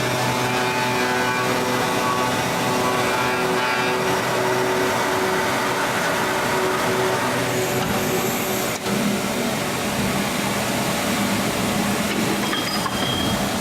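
Steady machinery noise, a motor running with a hum under a constant rushing sound, with a single sharp click about nine seconds in.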